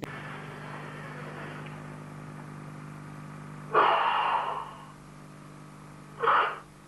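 Forceful Sanchin kata breathing: one loud breath about four seconds in, lasting about a second, and a shorter one near the end. A steady low hum sits under the first half.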